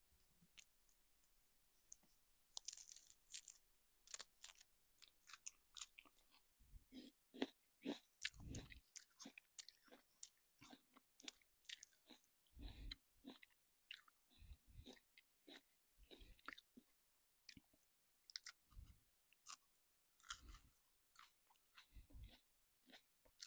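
Faint close-up crackling and rustling of soft baked pizza-pocket bread being torn open and handled, starting a couple of seconds in, with dull low thumps every second or two from about a third of the way through.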